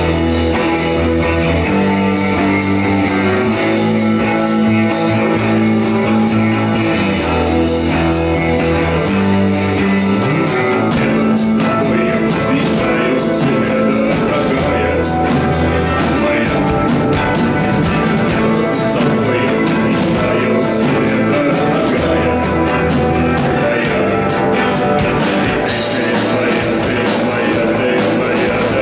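A live rock band playing a song: acoustic and electric guitars over a steady drum kit, with moving bass notes. The band fills out about ten seconds in.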